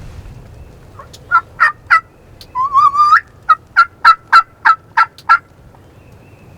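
Turkey yelping: three sharp notes, a short rising, warbling call, then an even series of about eight yelps at roughly three a second.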